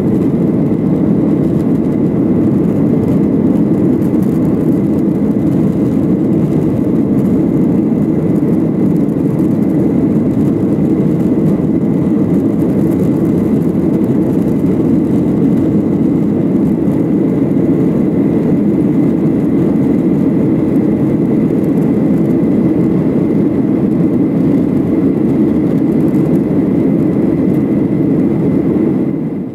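Steady cabin noise inside a Boeing 737-800 in flight: the dense low rush of its CFM56-7B turbofan engines and the airflow over the fuselage, with a faint steady whine above it. The sound fades out at the very end.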